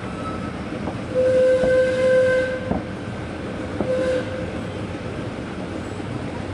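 A small narrow-gauge park-railway locomotive sounds its warning signal: one long steady blast about a second in, then a short blast about a second after it. Underneath, the train rumbles along the track with a few clicks from the wheels.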